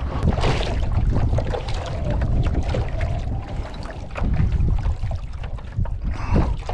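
Wind buffeting the microphone in a heavy low rumble, with light splashes and drips of water as a wet crab pot rope is hauled in hand over hand.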